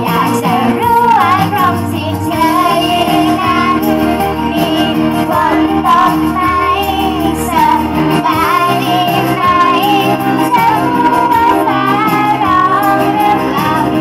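Young girls singing a Thai pop song into microphones over backing music, amplified through PA speakers.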